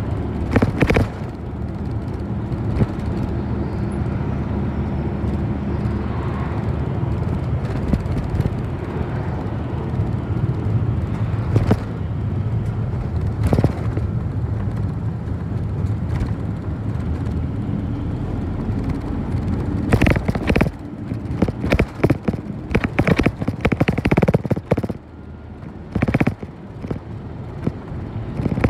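City bus running, heard from inside the cabin: a steady low engine and road rumble with an occasional knock. From about twenty seconds in comes a quick run of knocks and rattles.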